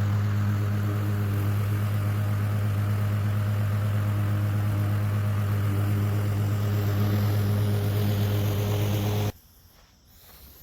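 Masport Rotarola petrol push mower's engine running steadily, then cutting off abruptly about nine seconds in as it is shut down.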